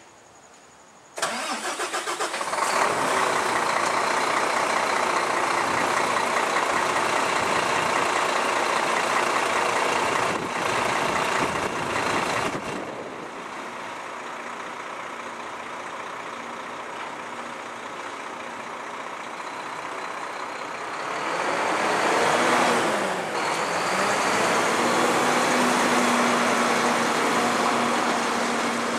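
Volvo FM front-lift garbage truck's diesel engine starting about a second in, then running steadily. After a quieter stretch it grows louder again, dipping and rising in pitch as the truck moves off, and settles into a steady drone.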